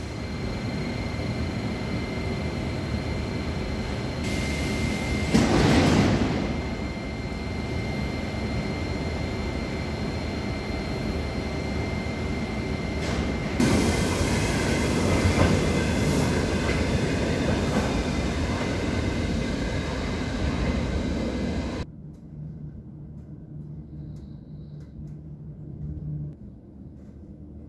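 Metro train in an underground station: steady rumble and wheel noise with a thin high whine, swelling about five seconds in and again from about fourteen seconds. It cuts off suddenly about 22 seconds in, leaving a faint low hum.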